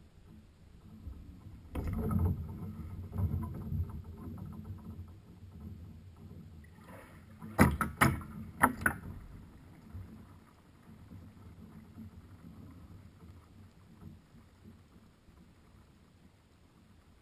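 Muffled water and handling noise picked up by an underwater camera: a low rumbling swish about two seconds in that fades out, then three sharp knocks close together near the middle.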